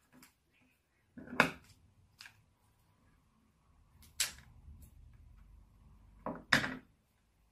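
A few sharp clicks and knocks from handling scissors and flower stems on a table, the loudest just over a second in; a scissors snip through a flower stem about four seconds in, and a quick double knock near the end as the scissors are put down.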